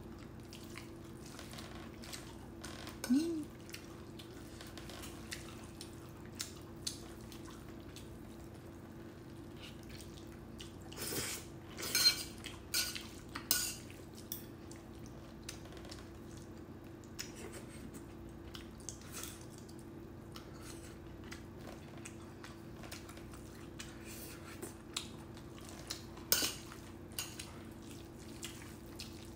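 Metal chopsticks clinking and scraping against a ceramic bowl as sauced noodles are stirred and picked up. The light clinks are scattered, busiest in the middle and again near the end, over a steady low hum.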